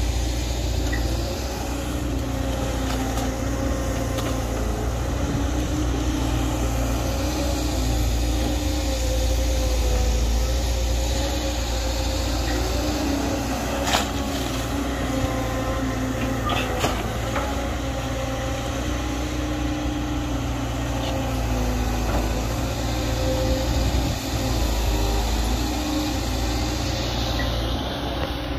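Caterpillar 320D excavator's six-cylinder diesel engine running steadily under working load, with a pitched hydraulic whine over its low rumble. A sharp metallic knock comes about halfway through, and a couple of lighter clanks follow a few seconds later.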